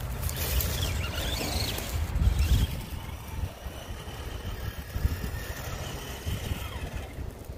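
Electric RC scale crawler truck driving over a leaf-covered dirt trail: a faint motor and gear whine with the rustle and bumps of its tyres.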